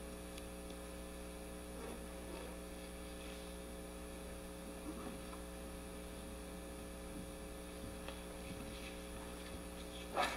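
Steady electrical mains hum on the sound system. A few faint, brief sounds, and a short louder sound just before the end.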